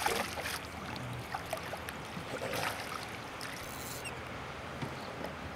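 Hooked striped bass thrashing and splashing at the water's surface beside a boat, with a stronger splash at the start and another about two and a half seconds in, then lifted out on the line.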